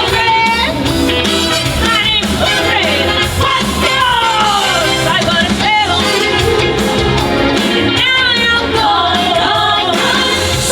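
Loud music with singing, a sung melody line over a dense, steady bass.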